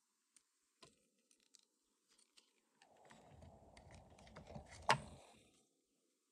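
LEGO plastic parts clicking and rattling: a few small clicks, then a faint rumbling, rattling stretch from about three seconds in, with one sharp click near the end of it.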